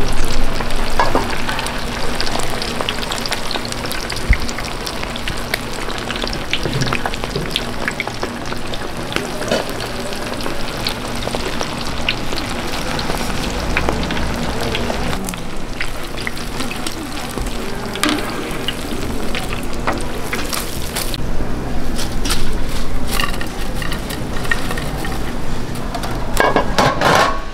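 Food frying with a steady sizzle, with many short clicks and scrapes of a utensil as it is stirred.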